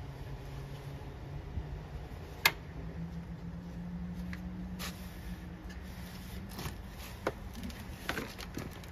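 Faint handling noise: a few sharp clicks and knocks, the clearest about two and a half seconds in, over a low steady hum.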